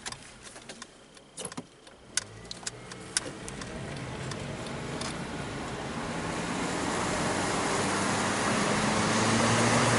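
A few sharp clicks and knocks from inside a car, then its engine and road noise building up steadily as the car gets under way and picks up speed.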